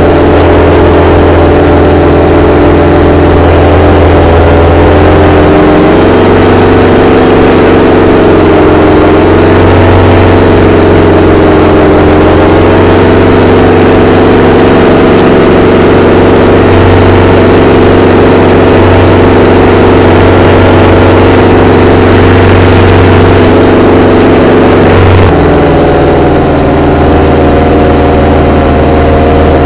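Vittorazi Easy 100 paramotor engine, a single-cylinder two-stroke, running loud and steady in flight. Its pitch rises as the throttle is opened about six seconds in and drops suddenly as it is eased back near the end.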